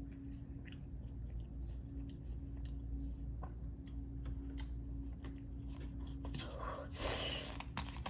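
A person chewing a mouthful of chicken sandwich, with scattered wet mouth clicks and smacks and a louder noisy burst about seven seconds in. A steady low hum runs underneath.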